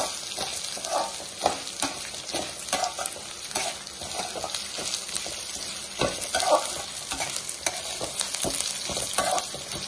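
Chana dal, urad dal, spices and curry leaves frying in a little oil in a metal kadai, sizzling steadily, while a steel ladle stirs them with frequent short scrapes and taps against the pan. They are being roasted until brown and fragrant.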